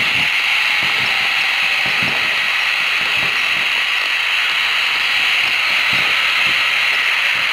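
A loud, steady hiss, with faint low knocks now and then.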